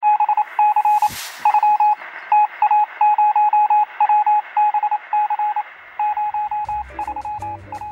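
Radio telegraph sound effect: a single beep tone keyed on and off in Morse code over a steady hiss of static, with a brief whoosh about a second in. Music starts to come in near the end.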